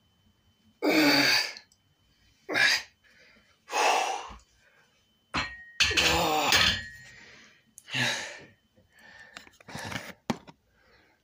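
Forceful exhaled breaths and gasps from a man doing barbell biceps curls, one every second or so, with a longer groan-like breath about six seconds in. A thunk comes just after five seconds, and a few clicks and knocks near the end come from handling the phone.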